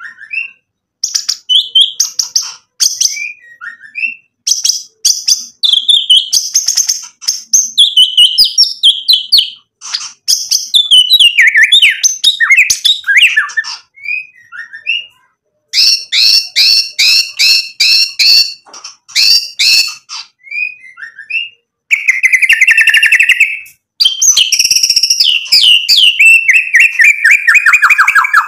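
White-rumped shama (murai batu) singing loudly in varied phrases with short pauses between them: whistled notes, fast trills and sharp clicks, a run of evenly repeated notes in the second half, and a falling trill near the end. It is the full, showy song mixing many phrases (isian) that keepers use to goad other shamas into singing.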